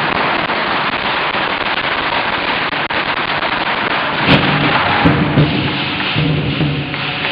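A string of firecrackers crackling rapidly, a dense run of small pops. About four seconds in it cuts to a different, lower din.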